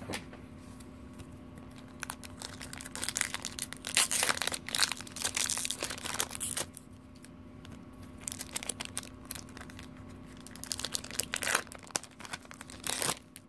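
Foil Pokémon booster pack wrapper being crinkled and torn open by hand, in two spells of bursts of crinkling and tearing, the later one as the cards are pulled out of the wrapper.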